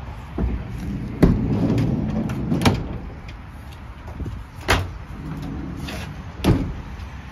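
Vauxhall Vivaro van's rear barn door being unlatched and swung open: a series of about five metal clunks from the latch and door, the loudest about a second in, followed by a low rumble as the door moves.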